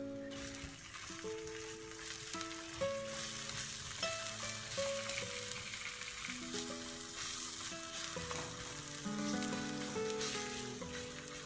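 Courgette slices sizzling steadily in hot oil in a frying pan.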